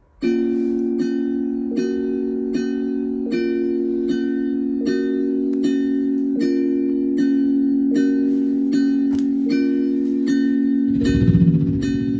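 Music played back through Logitech Z313 computer speakers: a sustained chord under a bell-like mallet note that repeats about every three-quarters of a second, starting abruptly. A bass line comes in near the end.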